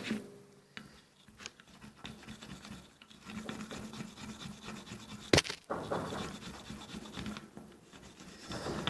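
A soft brush scrubbing carbon deposits off a throttle body's butterfly valve: a quiet, quick scratching and rubbing, with one sharp click about five seconds in.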